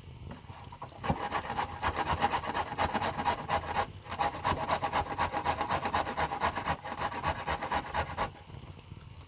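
A carrot being grated by hand on a metal box grater: quick rasping back-and-forth strokes, about four or five a second. They start about a second in, break off briefly twice, and stop shortly before the end.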